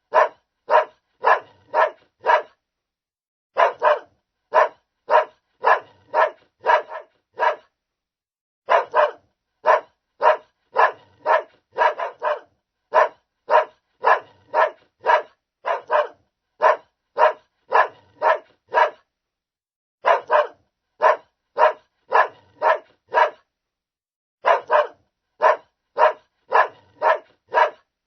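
Large dog barking, about two barks a second, in runs of several barks with short pauses between runs.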